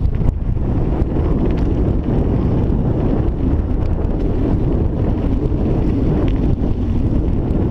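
Wind buffeting a helmet-mounted camera's microphone during a mountain bike descent, mixed with the bike's tyres rolling over a dirt and gravel road; a steady, grainy rush without pauses.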